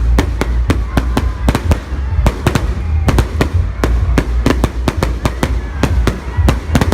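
Fireworks display: a rapid, irregular barrage of sharp bangs, several a second, over a continuous low rumble.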